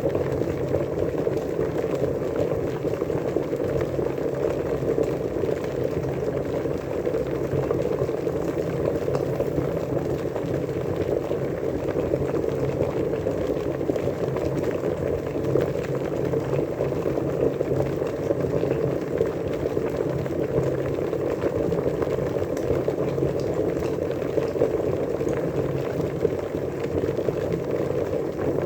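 Water boiling, a dense, even bubbling that holds steady without letting up.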